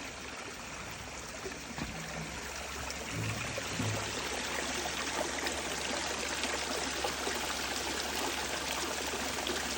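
Spring water running steadily out of a mountainside, a continuous trickling flow, with a few soft low knocks between about two and four seconds in.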